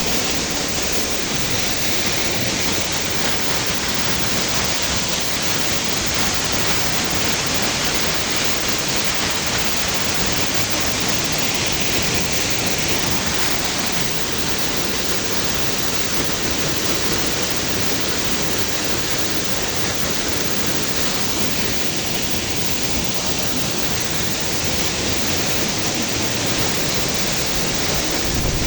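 Waterfall close by: a steady, even rush of falling water.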